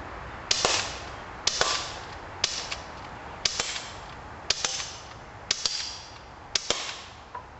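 CO2-powered BB pistol firing seven shots, about one a second. Each sharp crack is followed closely by a quick metallic tick and a brief ring as the BB strikes a tin can.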